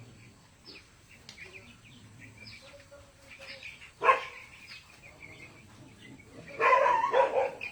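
Young broiler chickens peeping in the poultry shed, many short falling chirps. A sudden loud sound comes about halfway, and a longer, louder pitched sound near the end.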